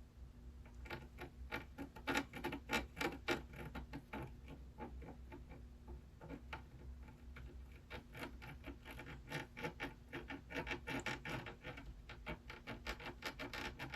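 Faint, irregular crackling and ticking of flux and solder under a soldering iron while fresh solder is worked onto the PS5 HDMI port pads, in uneven clusters of quick clicks.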